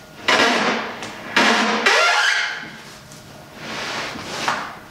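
A large countertop sheet sliding over a CNC router's plywood table, pushed in three scraping strokes: two long ones in the first half and a shorter one near the end.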